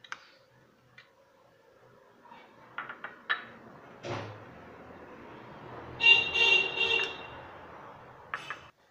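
A vehicle horn honking for about a second, about six seconds in, over the rising and fading noise of passing traffic. Earlier there are a few light clicks of a steel spoon against a glass bowl.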